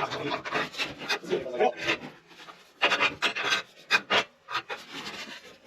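Shop press bending a bent steel-tube ATV bumper down, heard as a series of short, irregular rasping and scraping strokes.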